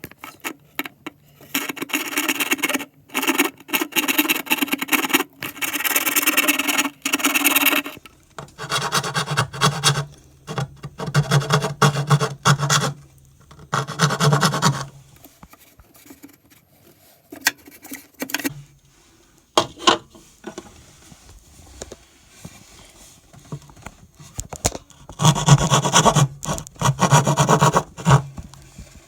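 Repeated bursts of scraping and rasping from tool work, each lasting one to two seconds with short pauses between, several of them over a low motor hum.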